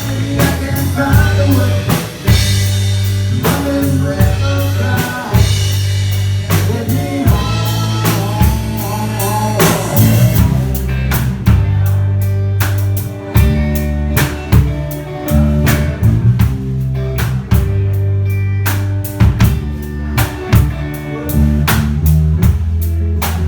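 A band playing live: a drum kit keeps a steady beat over a prominent bass line, with a wavering melody line above it for roughly the first ten seconds.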